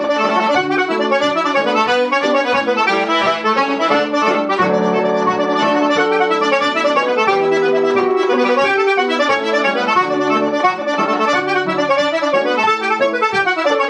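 Button accordion playing a traditional tune in a steady stream of quick notes, with piano accompaniment underneath.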